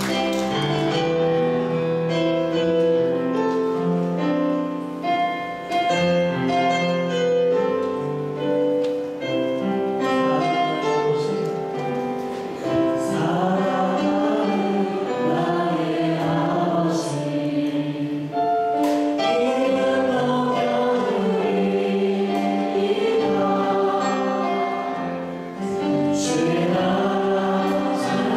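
Church praise team of male and female singers singing a gospel worship song with instrumental accompaniment.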